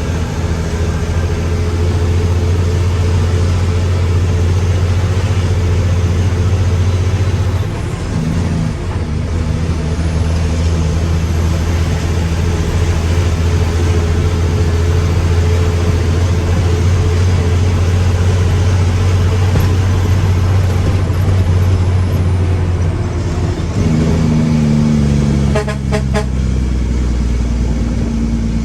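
Mack dump truck's diesel engine running steadily during granite off-loading. Its note dips briefly about eight seconds in and shifts pitch near the end, with a quick rattle of clicks shortly after.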